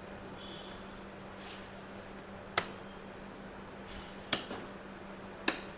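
Three sharp clicks, the second and third closer together, as a QRSI-1 locomotive safety relay's pickup setting is adjusted on a test bench, over a steady low hum.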